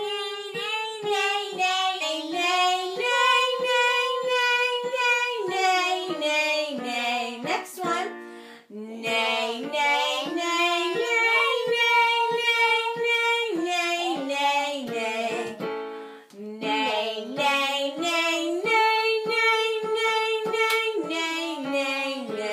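A young boy's voice singing warm-up scales on repeated 'nay' syllables, stepping up and down in pitch, with piano accompaniment. Three runs, with short breaks about eight and sixteen seconds in.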